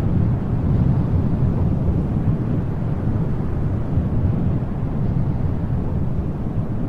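Wind blowing as a steady, low rushing rumble, with no gusts or breaks.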